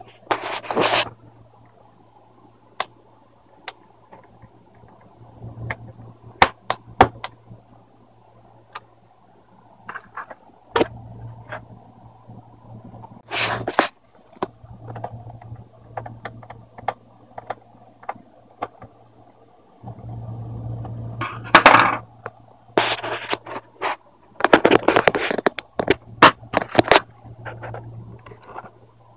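Small screwdriver and screws working on the laptop's plastic screen bezel: scattered clicks and short scrapes, busiest in a few clusters, with a low hum coming and going underneath.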